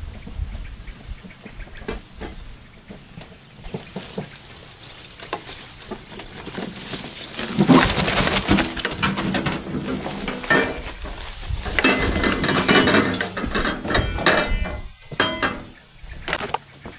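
A steel wheelbarrow rattling and clanking as it is pushed over rough dirt ground. The clatter builds about four seconds in and is loudest through the middle.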